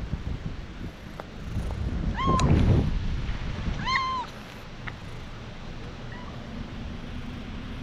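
Tabby stray cat meowing: two short arched meows about a second and a half apart, then a fainter one near the end, over low rustling as a hand pats and strokes its fur.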